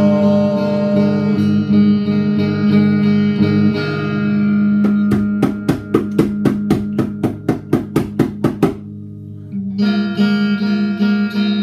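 Electric guitar ringing out sustained chords, then a fast run of sharp percussive hits, about four a second, for roughly four seconds. The playing breaks off briefly, and the chords start again near the end.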